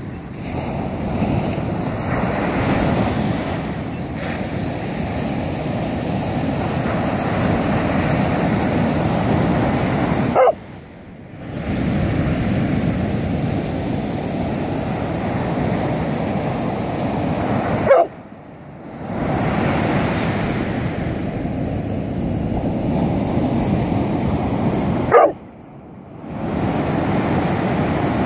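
Ocean surf breaking and washing up the beach in a steady rush. Three times, about seven seconds apart, a dog gives a short rising whine, each followed by a second-long lull in the sound.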